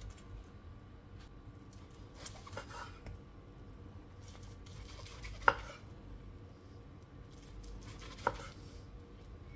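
Knife slicing boiled pork on a wooden cutting board, the meat held with a fork: faint scraping and cutting, with two sharp knocks that ring briefly, the louder one about halfway through and another near the end.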